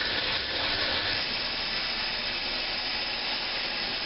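BMX hub's freewheel mechanism clicking so fast that it blurs into a steady, hiss-like buzz as the wheel spins.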